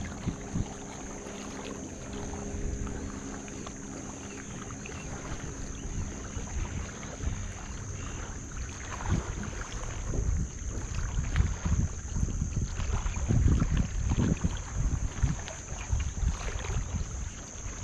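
Wind buffeting the microphone in irregular gusts, strongest in the middle and latter part, with water lapping at a rocky shoreline and a steady high-pitched hiss underneath.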